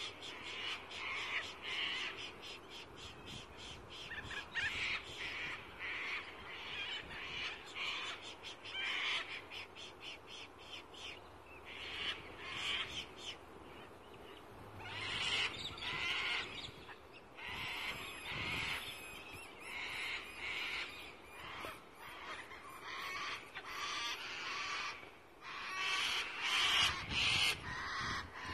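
Fox whistle blown in repeated short calls, a series of bursts every second or so, imitating a rabbit in distress to lure a fox in.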